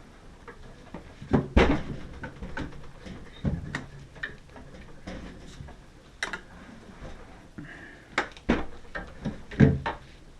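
Irregular knocks and clicks of hard objects being handled and set down, about half a dozen sharp ones, the loudest about a second and a half in and near the end.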